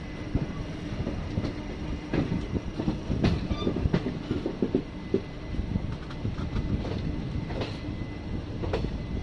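Moving passenger train: a steady low rumble with irregular clatter and knocks as the wheels run over the track.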